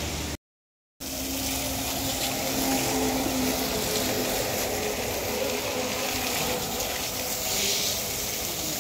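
Jet of water from a hose spraying and splashing against a pickup truck's steel poultry cages and body: a steady hiss of water. The sound cuts out completely for about half a second near the start.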